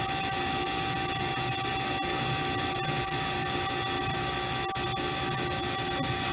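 DoAll TF-2021NC hydraulic tilt-frame vertical band saw running steadily: a constant machine hum with a steady high whine and a few faint clicks.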